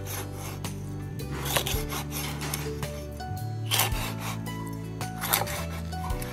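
Meat cleaver sawing through a whole fish and chopping it into steaks on a wooden chopping board: scraping through scales and bone, with a few sharp knocks of the blade striking the wood. Background music plays throughout.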